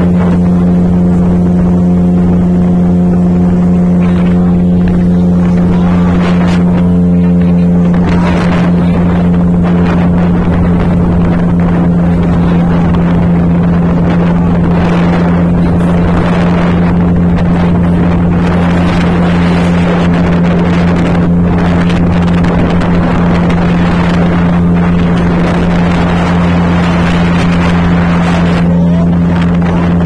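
A small boat's motor running at a steady speed, a constant low drone. About eight seconds in, a rushing noise of wind and water joins over it.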